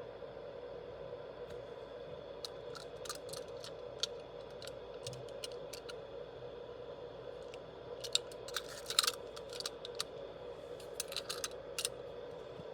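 Scattered small clicks and crackles of hands handling the packaging and toy car, in two bursts, busiest in the second, over a steady low hum.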